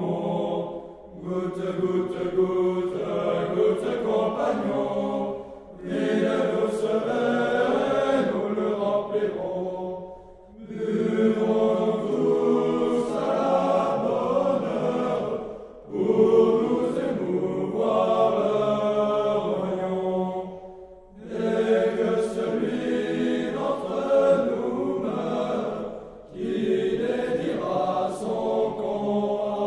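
A group of cadets singing a French drinking song together, in phrases of about five seconds with short breaks for breath between them.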